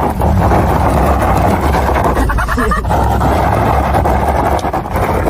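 Vehicle engine revving hard and running steadily under heavy load, straining against a steel tow hitch.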